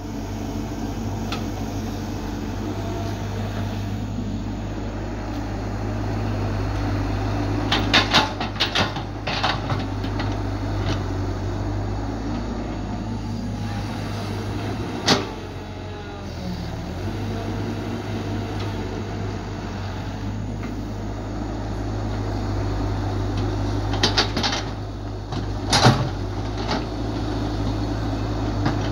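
Caterpillar 312 hydraulic excavator's diesel engine running steadily under digging work, with clusters of sharp knocks from the digging gear around 8 seconds in, once at about 15 seconds, and again around 24 to 26 seconds. The engine briefly eases and drops in pitch at about 16 seconds.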